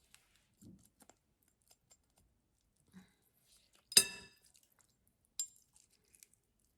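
Kitchen utensil clinking against a dish while salad ingredients are mixed: scattered small clicks and taps, with one sharp ringing clink about four seconds in and a weaker one about a second and a half later.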